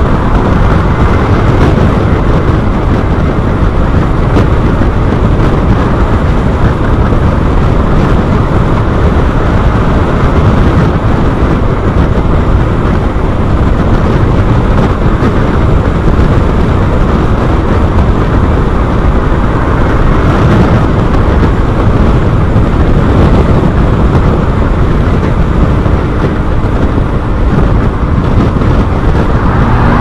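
Loud, steady wind rush buffeting the microphone while riding a Honda Forza 350 scooter at about 70 mph behind its windscreen, with road and motor noise mixed in.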